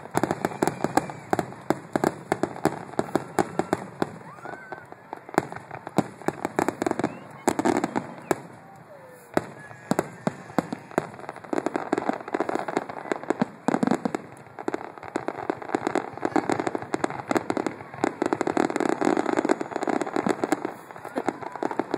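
Fireworks grand finale: a dense barrage of aerial shells bursting and crackling, many reports a second, easing briefly about nine seconds in.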